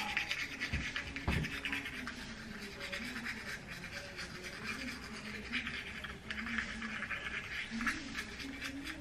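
A toothbrush scrubbing a small child's teeth: quick, irregular brushing strokes.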